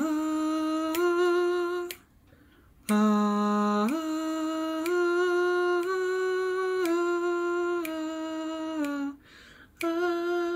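One man singing the altos' 'ah' line unaccompanied: long held notes that step up and down in pitch, in phrases broken twice by a short pause for breath.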